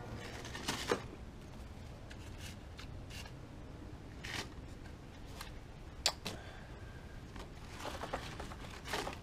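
Small objects being handled on a workbench: a few scattered light clicks and rustles at irregular intervals over a faint steady background.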